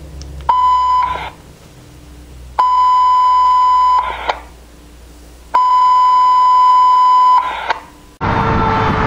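Radio dispatch alert tones: three steady high-pitched beeps, each longer than the last and each followed by a brief burst of radio static. Near the end a fire engine's Federal Q siren cuts in loudly, falling in pitch.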